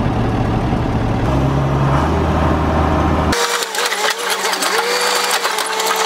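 John Deere 750C crawler dozer's diesel engine running, picking up revs about a second in. About halfway through the sound turns abruptly thinner, to a rapid clatter with a slowly rising whine.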